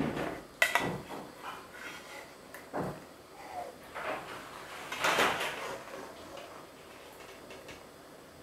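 Stainless steel slotted skimmer knocking and scraping against a metal pot and a ceramic plate as boiled chillies, shallots and lemongrass are scooped out. It makes a handful of separate clinks and clatters that die away over the last couple of seconds.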